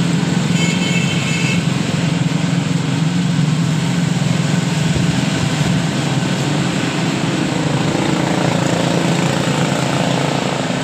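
Steady mechanical drone of a running motor or engine, even and unbroken.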